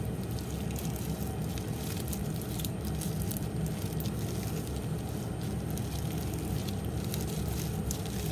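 Foam-bead slime being kneaded and squeezed by hand: soft squishing with scattered small clicks and crackles from the foam beads, over a steady low background hum.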